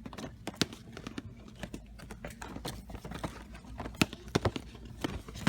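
Irregular light clicks and knocks of plastic-packaged action figures being handled and shifted on store pegs, over a faint low hum.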